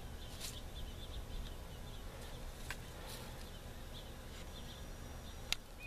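Quiet outdoor ambience: a low wind rumble on the microphone with a few faint bird chirps, and a single sharp click about five and a half seconds in.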